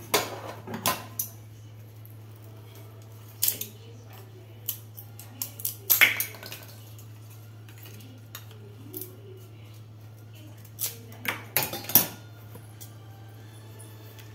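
Dry grass stalks knocking and clicking against a steel pot as they are laid inside as a steaming rack. The sharp knocks come in irregular clusters, loudest about six and twelve seconds in.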